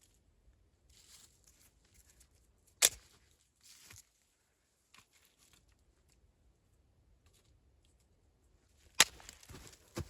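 Rustling handling noises, with a sharp crack about three seconds in and two more near the end.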